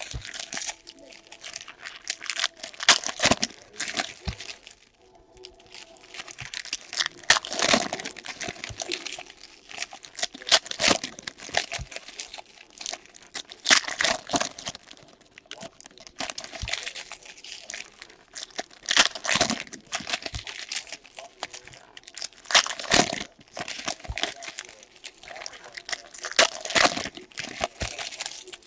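Trading card pack wrappers being torn open and crinkled by hand, an irregular run of rustling, crinkling and tearing.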